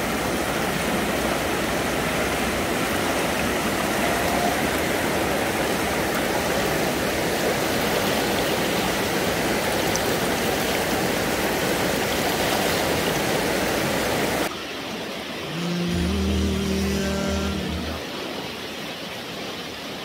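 Fast, clear mountain river rushing over rocks, a steady full noise of flowing water. About three-quarters of the way in it cuts off suddenly, and a few held musical notes follow.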